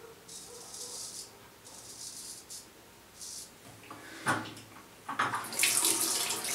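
Dovo 5/8 straight razor scraping through lather and stubble in three short, high-pitched strokes about a second and a half apart. From about four seconds in, a louder run of tap water splashing into the sink.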